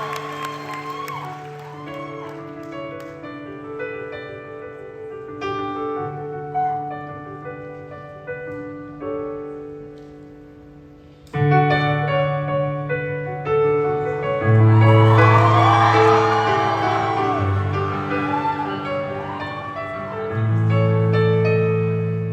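Live band music: a piano plays a soft introduction of held chords, then the full band comes in much louder about eleven seconds in.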